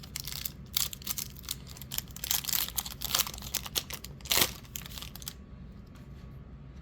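Wrapper of a Donruss basketball trading card pack crinkling and tearing as the pack is opened, with one louder sharp rip about four seconds in; the rustling stops about a second later.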